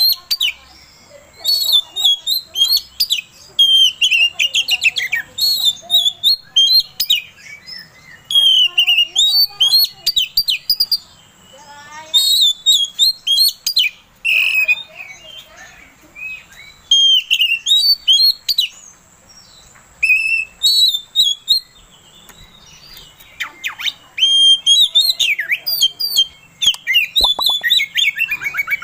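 Male oriental magpie-robin singing in full voice: loud phrases of rapid, varied whistles and chattering notes, coming in bursts of a second or two with short pauses between. This is the energetic 'gacor' song that keepers play as a lure to rouse other magpie-robins.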